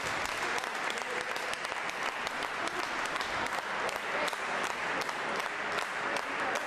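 Crowd in a sports hall applauding during a boxing bout, a steady hiss of clapping with single sharp claps standing out about twice a second.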